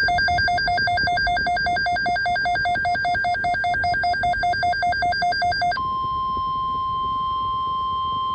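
Emergency alert tones: an electronic alert beeping rapidly, about seven times a second. About six seconds in it switches abruptly to one steady single-pitch tone, the 1050 Hz weather radio alarm tone that signals an alert message, here a severe thunderstorm watch.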